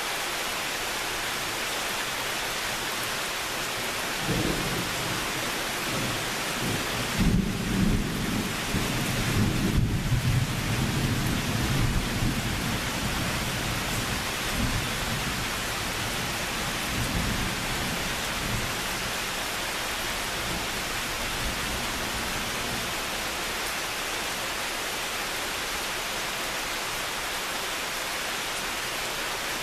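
Long rolling thunder rumble over the steady hiss of rain. The rumble starts about four seconds in, is loudest a few seconds later, and fades out over the next several seconds.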